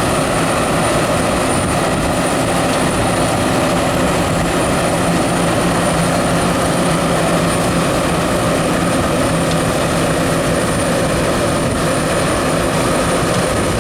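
John Deere STS combine harvester running steadily while harvesting, a constant engine and threshing drone with a thin high-pitched whine above it.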